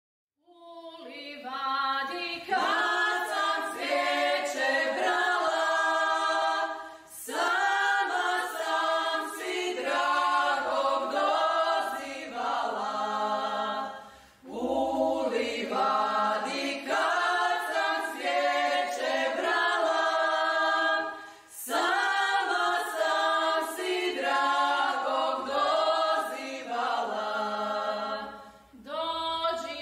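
Choir singing a cappella, in four long phrases of about seven seconds each with short breaks between.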